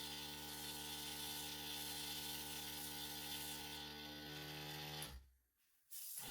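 Small airbrush compressor running with a steady motor hum and the hiss of air through the airbrush. It cuts off about five seconds in and starts again just before the end.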